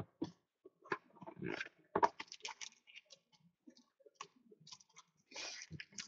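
Hands handling and opening a small cardboard trading-card box: scattered light taps, clicks and rustles, with denser plastic-wrapper crinkling near the end as the pack is taken out.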